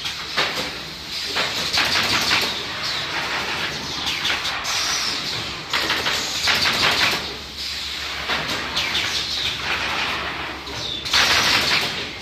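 Automatic canvas stretching machine at work: its pneumatic mechanism lets out repeated hissing bursts of air with mechanical clatter, about one a second, the loudest near the end.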